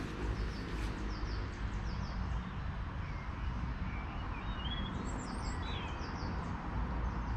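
Wild birds calling and chirping, with a few short wavering phrases of song in the middle, over a steady low rumble.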